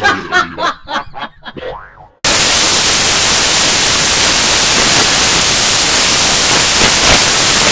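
A cartoon white mouse giggling in quick, high bursts that trail off. After about two seconds the giggling is cut off abruptly by loud, steady white-noise static hiss.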